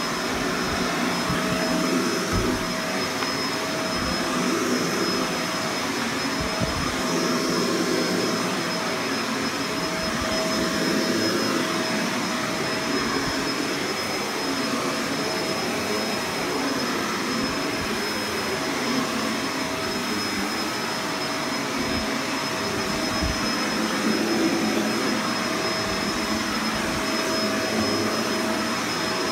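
Vacuum cleaner running continuously, its motor holding a steady high whine. The sound swells and eases every second or two.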